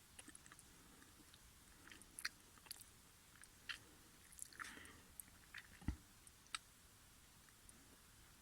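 Near silence with faint scattered clicks and small rustles, and one soft thump about six seconds in.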